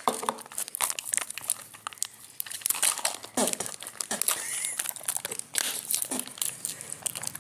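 Plastic snack packaging crinkling and rustling as it is handled, in quick irregular crackles with a few brief squeaks.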